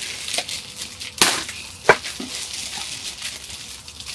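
Delivery packaging being torn open and rustling, crinkling throughout, with two sharp cracks a little over half a second apart.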